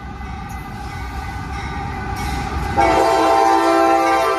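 Freight train's diesel locomotive approaching and passing close on the near track, sounding its horn over the rising rumble of engine and wheels. The steady horn chord gets much louder about three seconds in, as the locomotive draws level.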